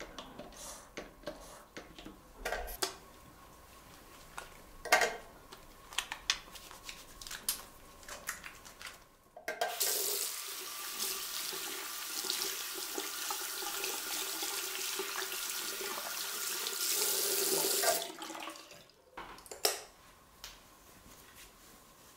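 Hand washing at a sink: a few soft clicks and rubbing sounds as soap is pumped and lathered, then a tap running over the hands for about eight seconds from about ten seconds in, cut off abruptly.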